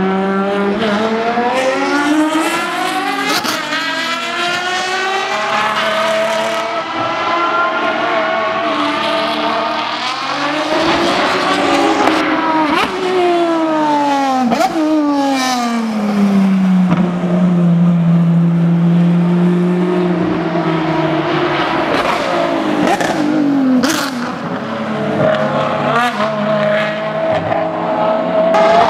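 Ferrari 599XX and FXX V12 track cars braking and downshifting into a chicane and accelerating out, several cars in turn, their engine pitch falling then rising again. A few sharp cracks are heard around the middle and later on.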